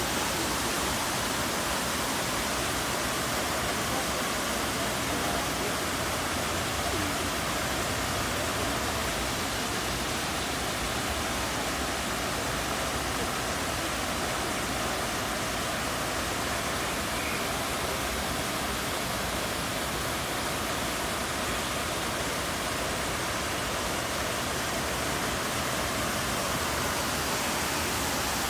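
Steady rush of water from Lincoln Center's Revson Fountain, its rows of vertical jets splashing down into the basin.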